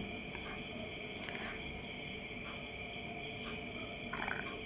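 A metal spatula scraping and stirring thick beetroot pickle in a wok, faint short scrapes a few times, over the steady chirping of crickets.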